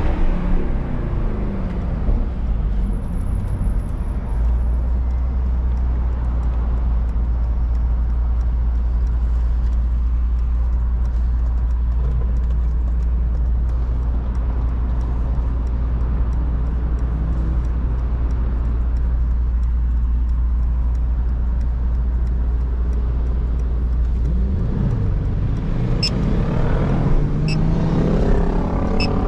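Mercedes-AMG GT63 S twin-turbo V8 engine heard from the driver's seat. Its pitch falls at first as it comes off the throttle, then settles into a steady low drone for about twenty seconds. Near the end it pulls away with the pitch rising.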